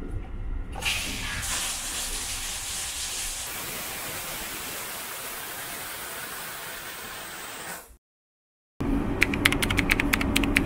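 The shower room's automatic cleaning system spraying water after its clean button is pressed: a steady hiss for several seconds that fades out. After a short break, the steady running noise of the train, with a quick run of clicks.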